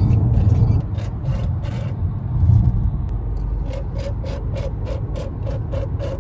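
Steady low road rumble inside a moving Volvo car's cabin, with the turn-signal indicator ticking about three times a second, clearest from a little past halfway.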